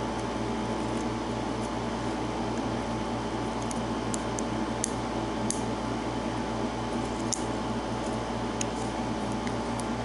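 Faint, scattered metallic clicks of a hook pick lifting the pin tumblers of a brass American Padlock Series 20 under tension-wrench pressure, the core sitting in a false set. A steady background hum runs under the clicks and is the louder sound.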